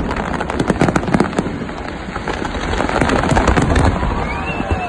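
Fireworks display with many shells and crackling effects bursting in quick succession: a dense stream of sharp cracks and pops over deep low booms. Near the end, a high rising whistle sounds above them.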